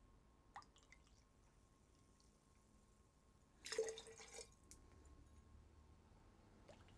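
Soda water poured from a small glass bottle into a metal jigger: one short splash of liquid just past halfway, with a couple of faint clicks around it and near silence otherwise.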